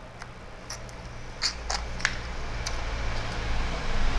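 Small wet clicks and squelches of jelly being sucked and squeezed out of a plastic tube, a handful of short sharp ones spread through, over a low hum that grows louder toward the end.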